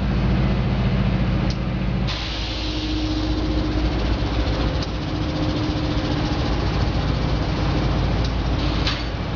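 GE Evolution Series hybrid locomotive's diesel engine running as it rolls slowly past, a low steady hum over wheel and rail rumble. About two seconds in, a hiss of air comes in suddenly and the hum drops away. A short, sharp hiss follows near the end.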